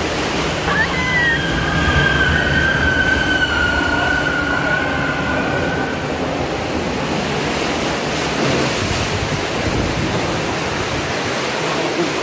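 Steady rush of water and low rumble from a round river-rapids raft ride moving through a tunnel. A high squeal sounds briefly about a second in, then holds as a steady tone for about five seconds.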